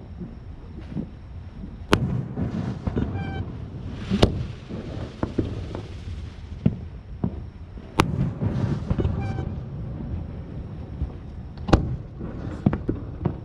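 Fireworks going off: sharp bangs about 2, 4, 8 and 12 seconds in, among many smaller crackles and pops. After the second bang comes a hiss lasting a couple of seconds.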